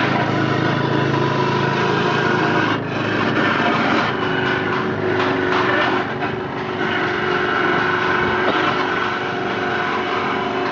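Coconut milk press machine running steadily: its drive motor turns the belt and chain drive and the screw inside the perforated stainless-steel drum as grated coconut is pressed. The running tone shifts about three seconds in.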